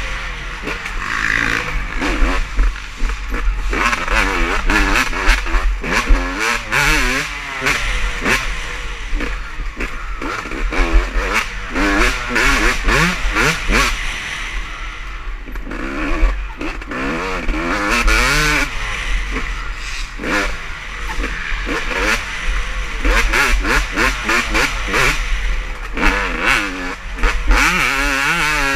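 Several motocross race bikes passing on the track, their engines revving up and falling away in overlapping sweeps as riders open and close the throttle.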